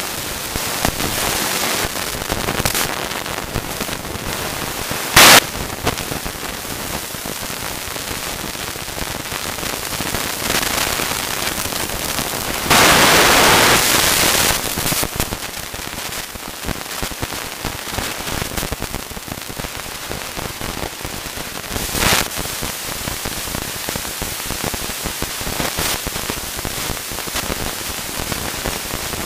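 Mountain bike riding fast down a leaf-strewn dirt trail, heard from a handlebar-mounted camera: continuous crackling and rattling of tyres and bike over the ground. There is a sharp jolt about five seconds in, a louder stretch of noise lasting about two seconds near the middle, and another jolt a little after twenty seconds.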